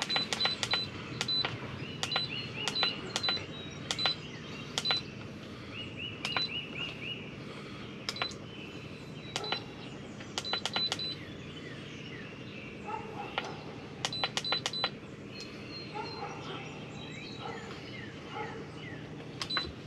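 Digital control panel of a Masterbuilt MES 140S electric smoker beeping with each button press as the temperature and time are set: short high beeps with clicks, in quick runs of several presses, with pauses between.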